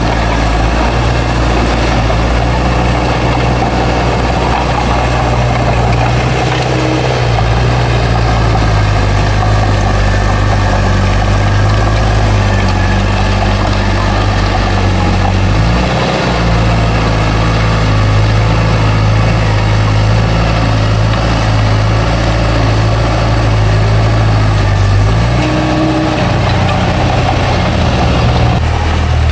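Bulldozer's heavy diesel engine running under load, its low note shifting in pitch a few times as the throttle changes.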